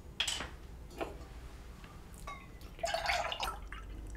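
Plant milk poured from a carton into a stainless steel milk jug, with a few light knocks as the jug and carton are handled.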